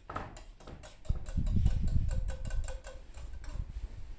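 Rapid, even ticking, about six ticks a second, with a loud low rumble coming in about a second in and fading out about two seconds later.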